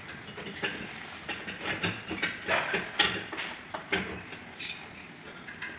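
Irregular light clicks and knocks of plastic and metal parts being handled as the blower wheel and fan motor are fitted into a split-type air-conditioner's indoor unit.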